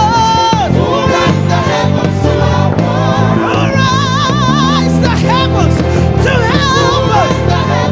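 Live gospel praise music: singers holding wavering notes over a bass guitar line and the rest of the band.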